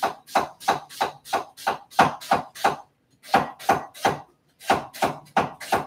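Chef's knife slicing a red onion on a wooden end-grain cutting board: steady knocks of the blade on the board, about three a second, broken by two short pauses.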